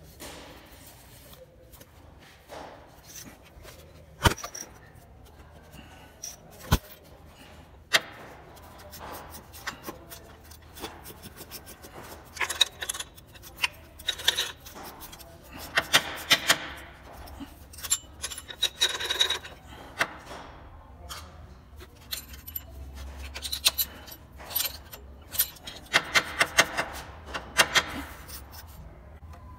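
Socket ratchet clicking in short rapid runs, with a few sharp metal clinks, as the bolt of an accessory-belt tensor is worked loose for removal.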